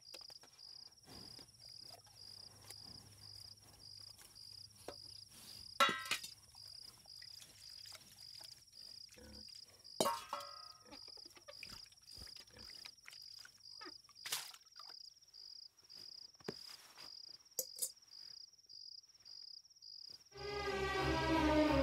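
Crickets chirping steadily, about two chirps a second, with a few sharp clinks of steel vessels being handled, one ringing briefly about ten seconds in. Music with low, sustained tones comes in near the end.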